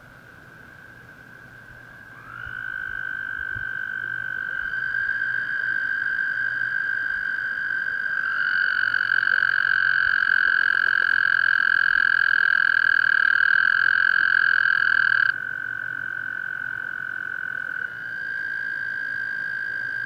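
American toads trilling: several long, steady, high trills overlap. The nearest male starts one about two seconds in, grows louder, and stops abruptly about fifteen seconds in, while fainter trills from other toads carry on.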